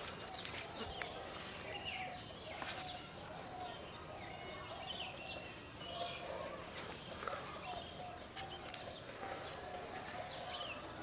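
Many birds chirping and calling at once: a dense chorus of short, overlapping chirps and quick falling notes that never pauses.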